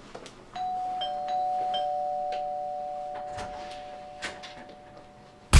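Two-tone doorbell chime, ding-dong: a higher note, then a lower note about half a second later, both ringing on and slowly fading away over about four seconds. A sudden loud thump comes right at the end.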